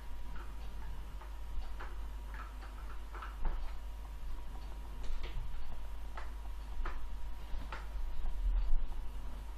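Irregular small clicks and taps of a screwdriver working out a laptop's case screws, with screws set down on a table, over a faint steady electrical hum. A dull low bump comes near the end.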